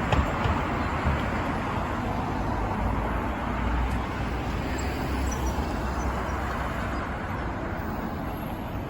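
Steady city street noise: a continuous hum of road traffic with a low rumble, no single event standing out.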